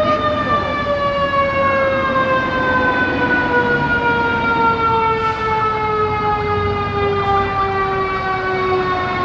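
An emergency vehicle's siren winding down: one long tone, rich in overtones, sliding slowly and steadily lower in pitch, over street noise.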